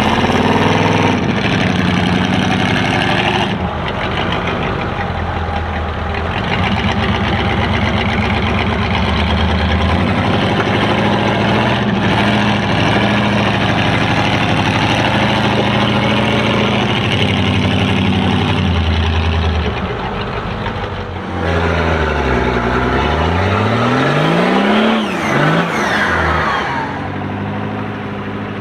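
Engine of a modified off-road 4x4 working under load as it crawls through deep mud, the revs rising and falling. Near the end the revs dip and climb sharply a couple of times.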